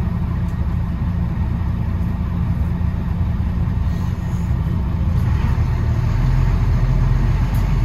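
London bus engine running with a steady low rumble that grows louder about five to six seconds in.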